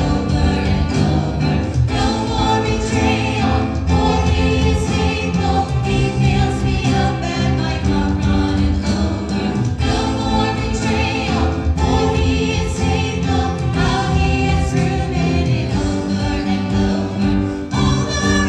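Voices singing a contemporary Christian worship song over steady instrumental accompaniment, with sustained sung phrases changing every second or two.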